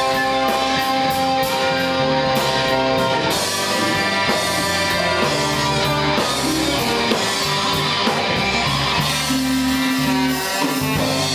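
Live blues band playing a slow blues instrumental passage: electric guitar holding long notes and bending one upward near the end, over bass and drums with steady cymbal strokes.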